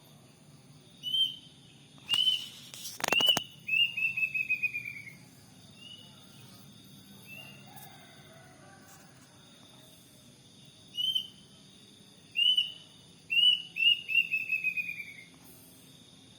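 Kedasih cuckoo (a Cacomantis cuckoo) calling: a few separate clear whistles, then a quick run of notes sliding down in pitch. The call is given twice, the second time about ten seconds in. A steady high insect drone runs underneath, and a couple of loud sharp knocks come about two to three seconds in.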